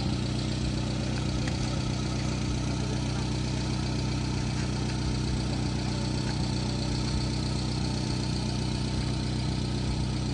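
A van's engine idling steadily, an even hum with no change in speed.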